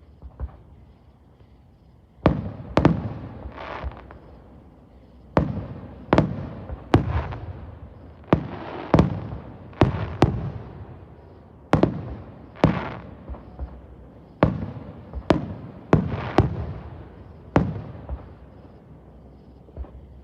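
Fireworks going off: a string of sharp bangs at uneven spacing, roughly one a second, beginning about two seconds in, each dying away in a rumbling tail.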